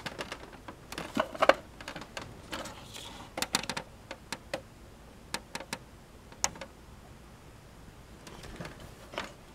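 Scattered plastic clicks and taps at uneven intervals, loudest about a second and a half in, as a grey ribbon data cable's connector is worked onto the back of a computer DVD drive.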